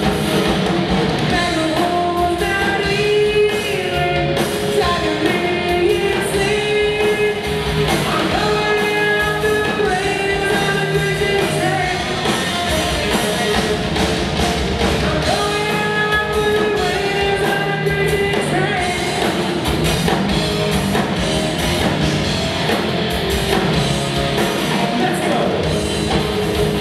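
Live rock band playing: a man singing lead into a microphone over electric guitar, bass and drums, with the reverberant sound of a large hall.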